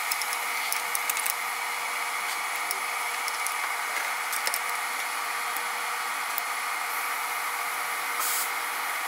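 Steady hiss and hum of a workshop's background noise, with a few faint clicks as small metal parts of a brake balance bar assembly are handled and threaded together.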